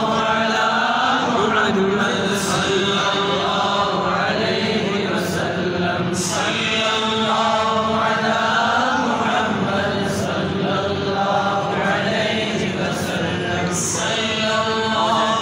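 A group of men's voices chanting together in a steady devotional recitation.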